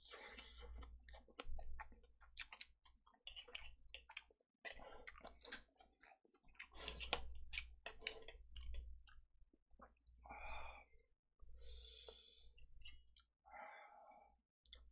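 Close-miked chewing of a mouthful of food, with many small wet mouth clicks, then a few short breaths near the end.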